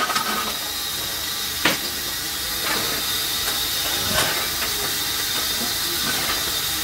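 Steady hiss of steam in a steam locomotive's cab, with a thin high tone running through it. Two light knocks, about two and four seconds in.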